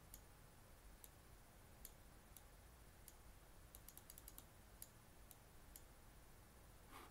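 Faint computer-mouse button clicks over near-silent room tone, single clicks every half second to a second with a quick run of several about four seconds in, as the mouse steps a number field up a little at a time.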